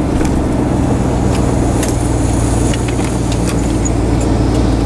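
A vehicle driving, heard from inside the cab: a steady low engine drone with road noise.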